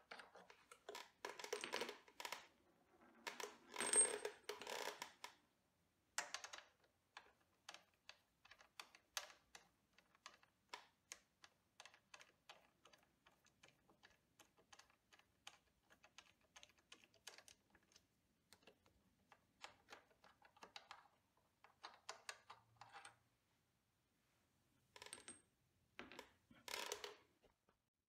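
Faint clicking of a socket ratchet undoing the brake caliper's mounting bolts: a long run of evenly spaced ticks through the middle, with a few louder metallic clinks of socket and tool near the start and end.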